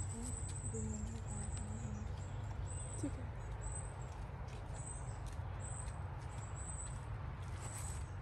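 Steady low rumble with faint high-pitched chirping in short, repeated stretches.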